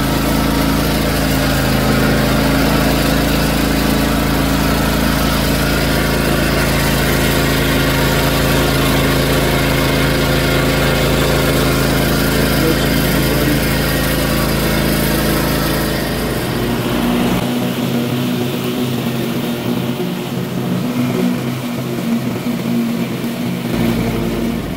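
John Deere X380 riding lawn mower's engine running steadily while mowing tall, thick grass. About two thirds of the way through, the deep rumble drops away and the sound turns more uneven.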